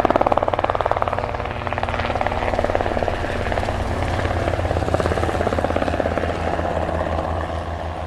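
Helicopter rotor blades chopping rapidly and evenly over a steady low hum, starting to fade near the end.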